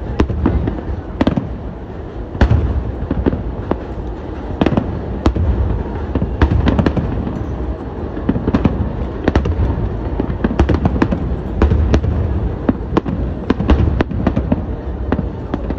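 Aerial firework shells bursting in quick succession: many sharp bangs at irregular intervals over a continuous low rumble.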